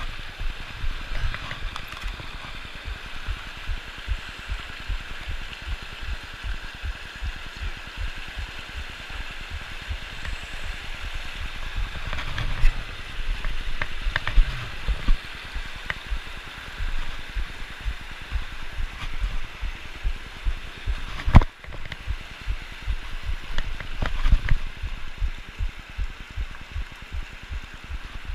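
Rocky mountain creek rushing over boulders in a steady hiss, with frequent low bumps on the microphone as the camera moves and one sharp knock about two-thirds of the way through.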